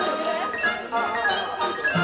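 Instrumental background music, a melodic track with a series of distinct notes.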